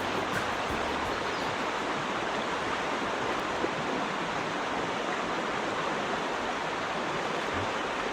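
Creek water running steadily, an even rushing hiss.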